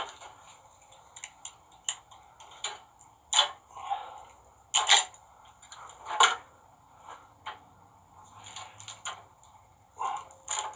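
A knife cutting and pulling electrical tape off a frayed steel winch cable: scattered sharp clicks and cracks, about five loud ones, with short scraping sounds in between.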